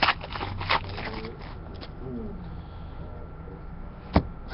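Trading cards being handled: a few short clicks and rustles, then a sharp single click near the end, over a steady low hum.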